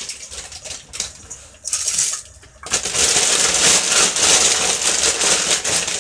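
Dry egg noodles shaken out of a plastic bag into a pot of boiling broth, a dense rattle and crinkle. Short spurts come in the first two seconds, then a continuous pour from about three seconds in.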